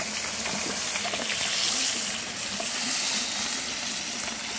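Pieces of fish frying in hot oil in a pan, a steady sizzle, the fish turning golden.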